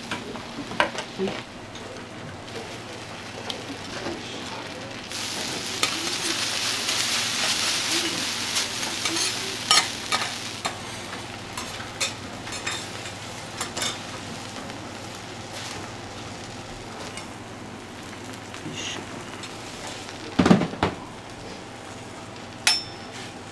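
Food sizzling on a flat iron okonomiyaki griddle, with metal spatulas scraping and clicking against the plate. The sizzle swells louder for a few seconds about five seconds in, and a sharper clank comes near the end.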